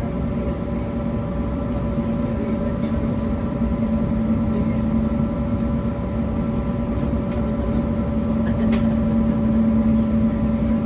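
Airbus A320neo cabin noise heard from a seat: a steady hum with a few held tones over an even rumble, growing slightly louder about four seconds in and again near the end.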